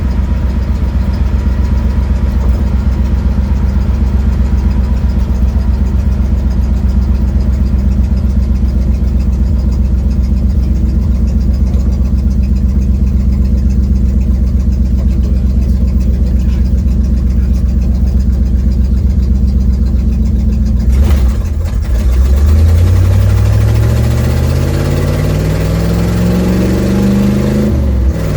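1972 Ford Mustang's engine and leaking exhaust, heard from inside the car: a steady low drone for most of the time. About three-quarters of the way through, the car accelerates, and the pitch rises for several seconds before dropping at a gear change near the end.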